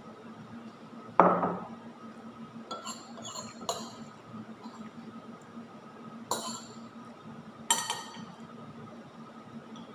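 A metal spoon and dishes clinking during a meal: a loud dull knock about a second in, then several sharp clinks against ceramic bowls. A faint steady hum runs underneath.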